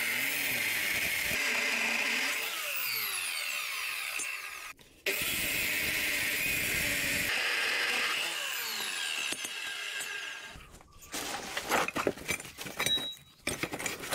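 Abrasive cut-off chop saw grinding through rectangular steel tube, a loud steady noise that breaks off briefly about five seconds in and stops about ten and a half seconds in. After it, a run of sharp knocks and clinks of metal pieces being handled.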